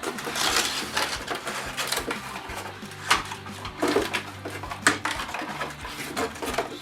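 Packaging and plastic parts being handled while a cordless tool set is unpacked: crinkling early on, then a series of sharp clicks and knocks.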